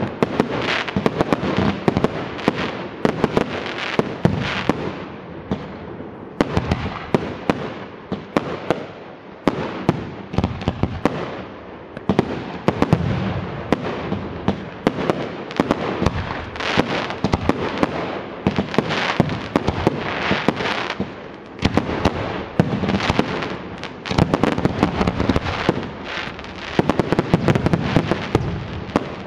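Aerial fireworks going off in rapid succession: a dense run of sharp bangs and pops that overlap one another, broken by a few brief lulls.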